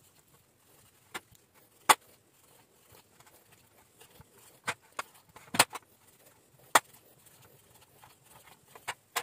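Kitchen knife scoring the skin of a raw pork shank in a stainless steel tray: about eight sharp, irregular clicks and knocks, with quiet stretches between them.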